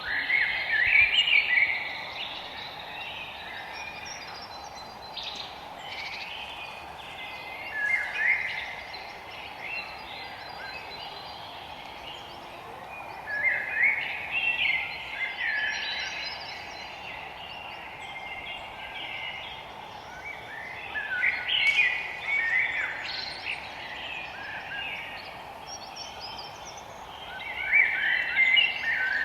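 Forest birds singing: short bursts of quick, chattering song every several seconds over a steady background noise.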